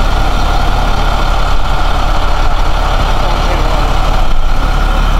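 A heavy utility truck's engine idling steadily, a constant low rumble with a steady higher hum over it.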